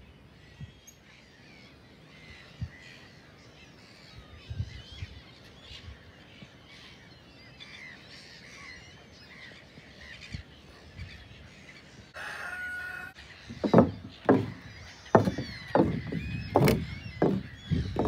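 A flock of birds calling, many short overlapping cries over a low rumble. In the last few seconds loud gusts of wind buffet the microphone again and again.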